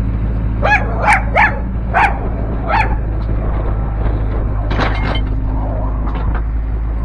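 A dog barking in short, sharp barks, about five in the first three seconds and another near five seconds, over the steady low hum of the CAT 308C excavator's diesel engine running.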